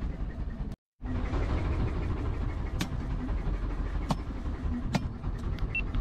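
Fishing boat's engine running steadily, with three sharp clicks from about halfway through. The sound cuts out completely for a moment about a second in.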